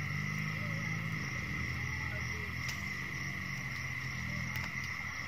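Crickets trilling steadily at night in one continuous high tone, over a low steady hum.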